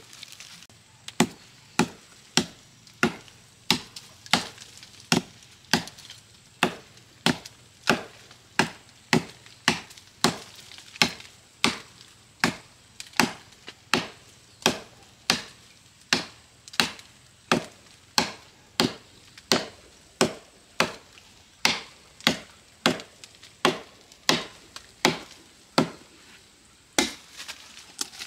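A hoe chopping into a bank of soil and tree roots in steady, evenly spaced strokes, about one every 0.6 seconds.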